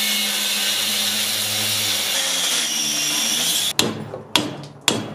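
Angle grinder's abrasive disc cutting into a square steel tube clamped in a vise, running with a steady grinding noise and motor hum until it cuts off suddenly near the end. A run of sharp knocks follows, about two a second.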